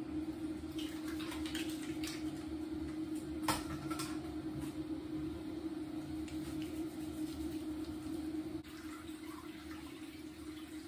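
Bathroom tap running into a sink, with small clicks and one sharp knock about three and a half seconds in; the running water gets quieter near the end.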